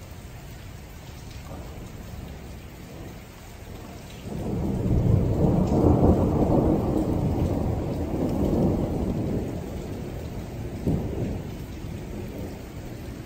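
Thunder rolling: about four seconds in, a deep rumble builds quickly, swells a second time a few seconds later, then dies away.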